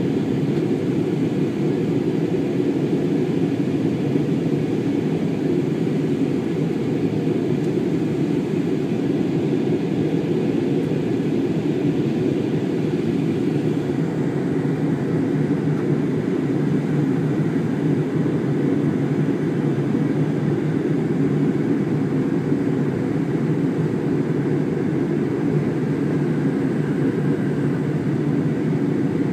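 Cabin noise of an Airbus airliner in flight, heard from a window seat: the steady, unchanging drone of the jet engines and airflow, deepest and strongest in the low range, with a faint steady high tone above it.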